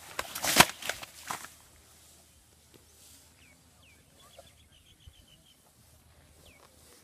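A long blue strip swung through the air by a baby elephant's trunk, giving a quick series of sharp flapping snaps for the first second and a half. Then only a low outdoor background with a few faint bird chirps.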